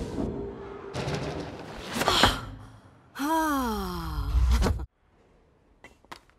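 Animated-film action sound effects: a rushing whoosh that ends in a sharp crack about two seconds in. Then a woman's drawn-out cry, its pitch rising briefly and sliding down, which cuts off abruptly. After that it is quiet apart from two faint clicks.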